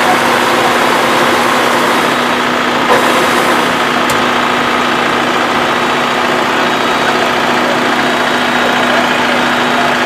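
Combine harvester running steadily under power, a constant mechanical noise with a steady low hum, while grain is discharged through its unloading spout.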